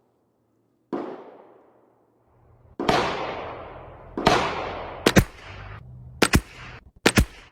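Weatherby XXII .22 LR rifle firing high-velocity rounds: three shots about a second apart or more, each trailing off in a fading echo, followed by several sharper, shorter cracks near the end.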